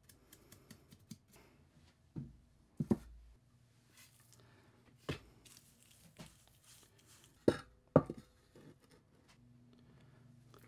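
Scattered short knocks and clicks of a wooden sand-casting flask, pattern pins and a mesh strainer being handled on a molding board, with faint scraping between; the two loudest knocks come about half a second apart about three quarters of the way through.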